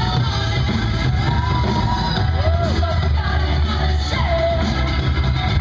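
Loud music with heavy bass and a singing voice, played by the DJ over the sound system for a breakdance battle.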